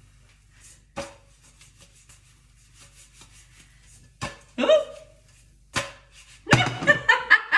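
A spoon scraping and tapping as yogurt is spooned onto a pancake on a plate: faint rapid scraping, with sharp clicks about a second in and twice more later. Short voiced sounds from the cook come in near the end.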